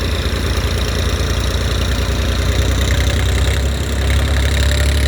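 Heavy diesel engine running steadily under load while pulling out a stuck harvester. Its low drone grows louder from about four seconds in.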